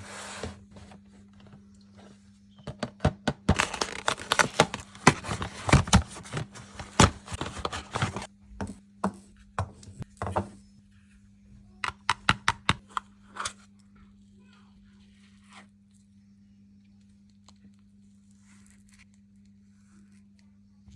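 Ice cream packaging being torn open and handled, with sharp crackles and crinkling that come thick for several seconds, then thin out into scattered clicks and fade to quiet. A steady low hum runs underneath.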